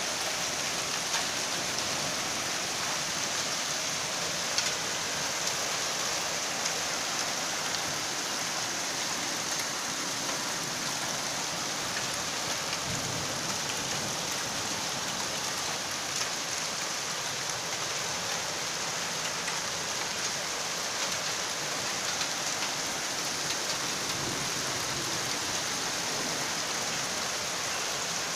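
Heavy rain pouring steadily, a constant hiss with scattered sharp ticks of drops striking nearby surfaces.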